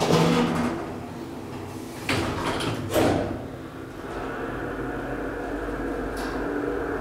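Doors of a 1980s KONE roped-hydraulic elevator sliding shut, with clunks at the start and twice more about two and three seconds in. About four seconds in, the elevator's drive starts with a steady low hum as the car begins to travel.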